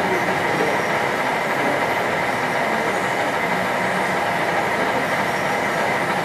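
HO scale model trains running on the layout's track: a steady rolling noise of small wheels on rail.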